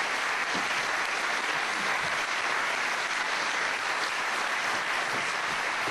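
Large theatre audience applauding, a dense, even clapping that holds steady throughout.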